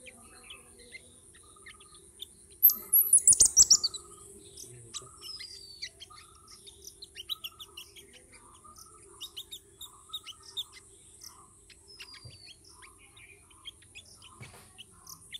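Birds chirping: a loud, quick run of descending chirps about three seconds in, then scattered short chirps and calls over a steady high-pitched hiss.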